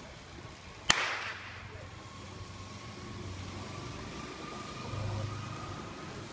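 A starting pistol fires once about a second in, a sharp crack with a brief echo, starting the keirin. After it the pacer motorcycle's engine runs faintly, its pitch slowly rising.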